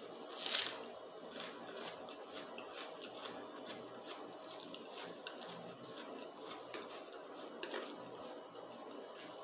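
Chewing and wet mouth sounds of a person eating spaghetti and a soft bread roll, with small clicks throughout and a sharper click about half a second in.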